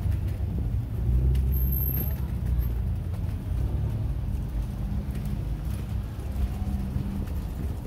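A car driving slowly past on a cobbled street, its engine a low rumble that is loudest about a second in.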